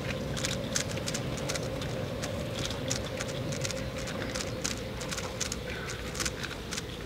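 Plastic 3x3 speed cube being handled and turned, giving irregular light clicks over a steady room hum.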